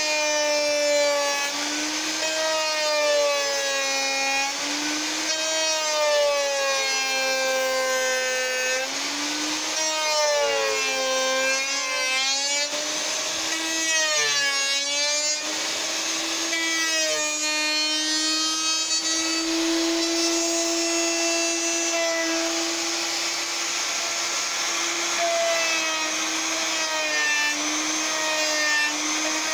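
Router with a bearing-guided bit cutting tulip (yellow poplar) wood, following an MDF oval template. The motor's steady high whine repeatedly dips and recovers in pitch as the bit takes load, most often in the first half.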